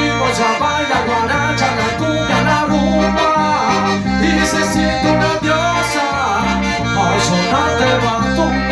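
Latin American music with a steady bass line and a repeating melody, with a cymbal-like strike every second or so.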